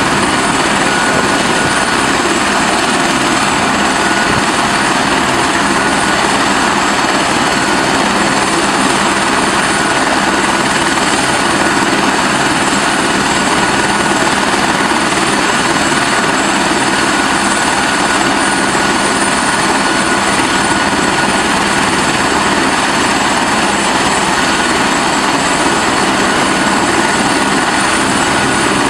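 Eurocopter AS350 Écureuil helicopter running on the ground with its rotor turning: a steady, loud rush of rotor and turbine noise with a thin, high turbine whine over it.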